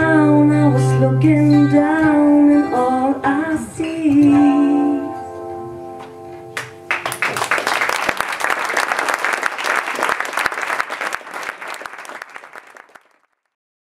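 A woman sings the closing line of a song over acoustic guitar, the last note and chord ringing out about five to six seconds in. The audience then claps for about six seconds before the sound stops.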